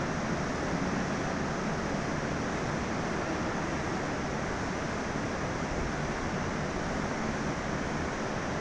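Steady, even rumble and hiss of railway station background noise under a large train shed, with no distinct events and no rise or fall.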